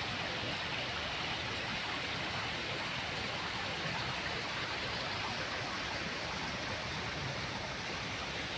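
Steady rushing of running water from a garden stream and cascade.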